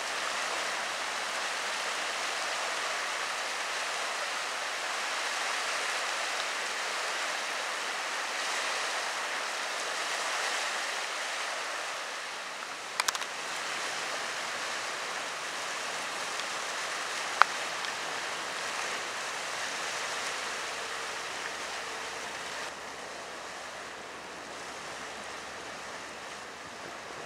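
Steady, even outdoor hiss, with a sharp click about 13 seconds in and another about 17 seconds in.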